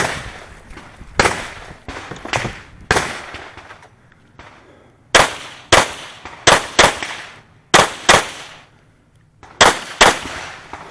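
Gunshots in a 2-gun stage: a few shotgun shots about a second apart, then, after a short pause, a pistol fired rapidly, mostly in quick pairs.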